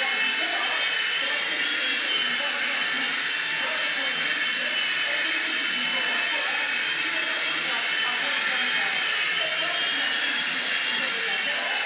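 Swift mini RC helicopter's small electric motors and rotors whining steadily in hovering flight, a high-pitched hum whose pitch wavers slightly as the helicopter moves.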